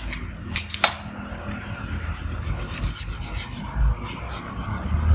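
A hand rubbing back and forth over a paper drawing sheet in quick repeated strokes, a dry scrubbing rasp. Just before it, two light clicks as a steel drafting square is lifted off the sheet.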